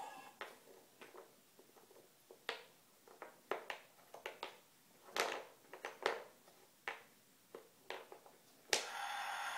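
Wooden puzzle pieces clicking and knocking against a wooden puzzle board as a toddler's hand presses and fits a piece, a dozen or so short sharp taps. Near the end a sharp click sets off a steady electronic sound from the sound puzzle's built-in player.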